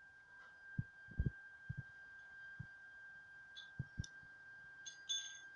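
Lathe running on its own with a faint steady high-pitched whine, with a few soft low thumps and light clicks.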